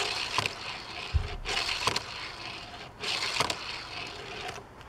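Hot Wheels Cockney Cab II die-cast toy car rolling and scraping across a wooden tabletop, pushed by hand in three runs, with a few sharp clicks and one low thump about a second in.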